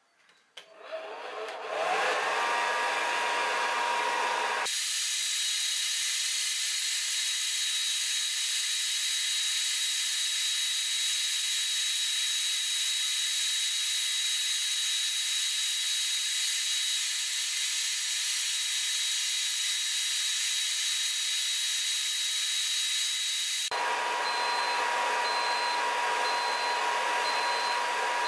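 Hot air gun switched on: its fan motor spins up with a rising whine about a second in, then runs steadily, a loud hiss of blown air with a high whine.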